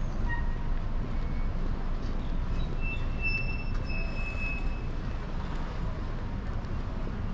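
City street ambience: a steady low rumble of traffic, with a high, thin squeal lasting about a second and a half in the middle.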